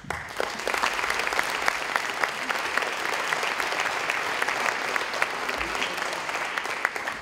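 Audience applauding: a hall full of people, many of them children, clapping steadily, dying away near the end.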